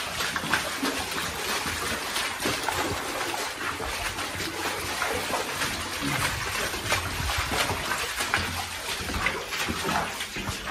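Boots splashing through standing water on a flooded coal-mine gangway floor, an irregular run of splashes as several people walk.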